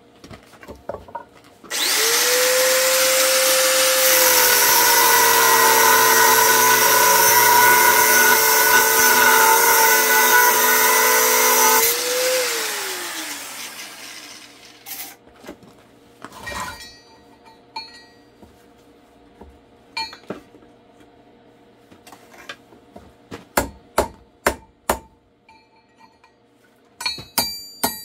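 Electric power tool running steadily for about ten seconds, then switched off and spinning down with a falling whine. Scattered clicks and knocks follow.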